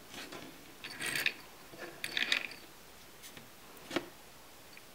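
Faint clicks and light scraping of a small die-cast toy car being turned by hand on a hard surface, in a few short spells, with one sharper click near the end.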